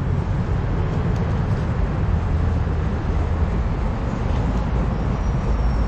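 Steady low rumble and hiss of train-station ambience, even throughout, with a faint thin high tone near the end.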